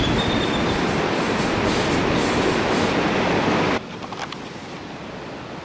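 Loud, steady rumble and rush of a moving vehicle, which cuts off abruptly about four seconds in to a much quieter background.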